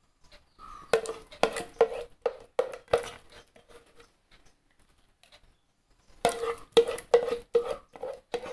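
A spoon knocking and scraping against a stainless-steel mixer-grinder jar while a thick cooked rice paste is scraped off it. The steel rings briefly after each knock. The knocks come in two runs of a few a second, with a pause of about two seconds between them.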